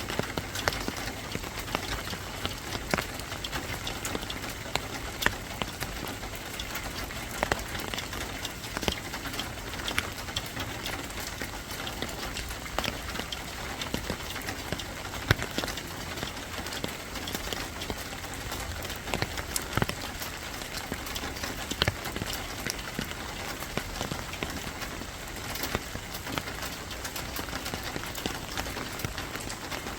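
Steady rain, with many sharp, irregular ticks of single drops landing over the continuous hiss.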